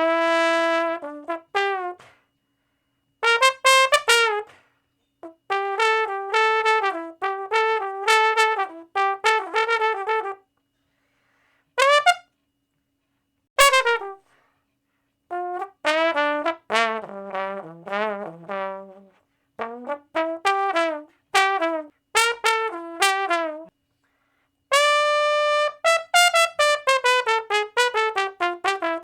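A brass instrument plays a series of short phrases and quick note runs, with brief silences between them. Near the end a held note drops into a fast run of falling notes.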